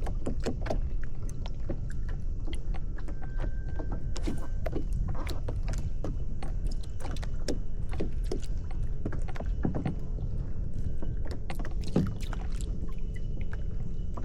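Water splashing and lapping around a kayak in many small irregular splashes, over a steady low rumble.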